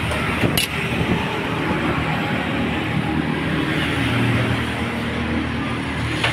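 Steady roadside traffic noise, with a motor vehicle's engine running nearby. A short sharp click comes about half a second in.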